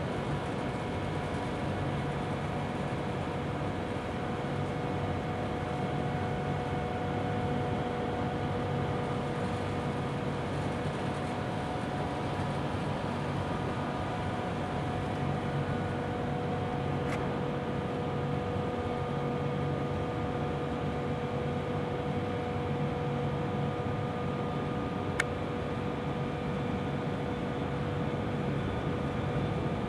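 Airliner cabin sound: a steady hum and rush with a constant whine from the aircraft's engines and air systems, heard from inside the cabin at a window seat. Two faint clicks come through, a little past halfway and again later.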